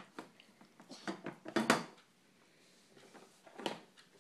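Plastic toy food and toy dishes clattering and knocking as they are handled, a handful of separate knocks with the loudest a little before halfway through.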